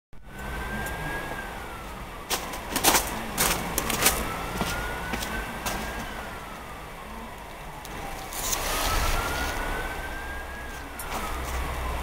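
A siren wailing, its pitch rising and falling slowly in cycles of about four and a half seconds, over a low rumble. A few sharp knocks sound in the first few seconds.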